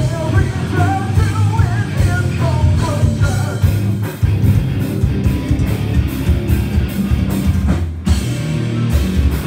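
Rock band playing live and loud in a small room, heard from among the audience: drum kit, electric guitars and bass, with a singing voice over it in the first few seconds. The band stops together for an instant near the end, then plays on.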